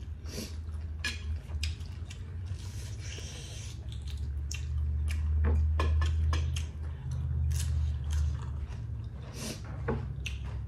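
Close-miked eating sounds: chewing, and fingers mixing rice and curry on a plate, a string of small wet clicks and smacks. A steady low hum runs underneath.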